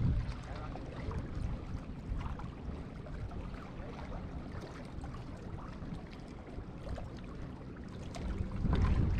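Wind buffeting the microphone, stronger at the start and again near the end, with small splashes of water lapping against the jetty rocks.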